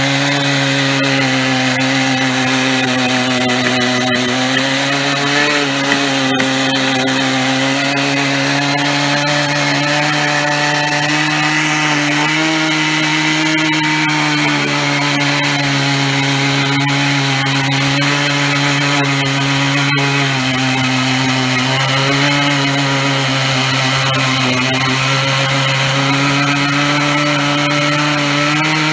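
Stihl MS 880 two-stroke chainsaw running steadily under load on a chainsaw mill. Its long bar and chain are ripping lengthwise through an oak log. The engine note holds nearly constant, wavering slightly in pitch as the cut goes on.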